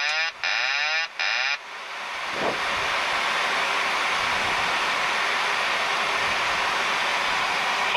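Boeing 737 autopilot disconnect warning, a warbling wail repeating in short pulses, that stops about a second and a half in as manual flight takes over. Then a steady rush of air and engine noise in the flight deck on final approach, swelling slightly before holding steady.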